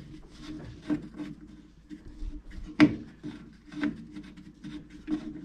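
Hand unscrewing the cap of a brake master cylinder's fluid reservoir: the cap rubbing and scraping on its threads, with irregular clicks and knocks, the loudest nearly three seconds in.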